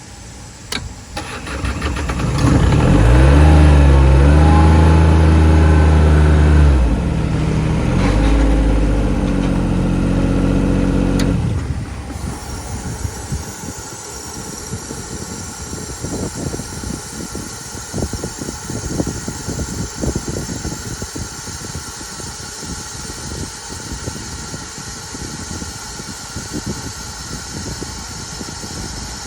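Airman PDS50S portable diesel engine air compressor starting about a second in and speeding up to run loud and steady, stepping down in pitch twice, then settling about twelve seconds in to a quieter, rougher running with an uneven diesel clatter.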